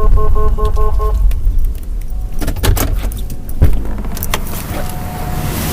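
Vehicle engine and road noise, a steady low rumble while moving in a procession. Over the first second a rapid pulsing electronic beep of several tones sounds and then stops. Around the middle there is a cluster of sharp clicks and rattles.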